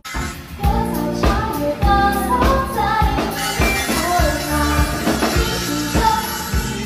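Background pop music with a steady beat and a singing voice.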